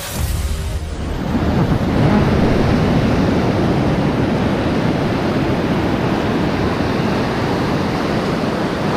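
Sea surf breaking and foaming over shoreline rocks: a steady rushing wash of water that swells up about a second in.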